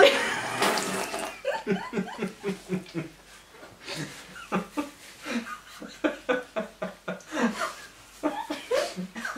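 A man bursts out laughing with a mouthful of water and sprays it out in a short hissing spatter. Then he and a woman laugh hard in short, repeated bursts.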